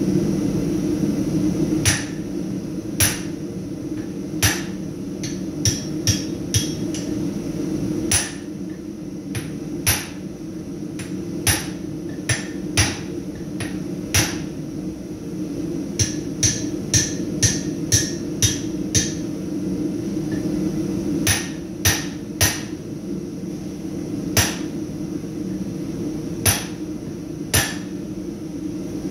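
Blacksmith's hand hammer striking a red-hot steel bar on an anvil, hot-forging the end of a beak (bick) tool that fits the hardie hole. The blows come irregularly, often about a second apart and in quicker runs of about two a second, each with a short metallic ring, over a steady low drone.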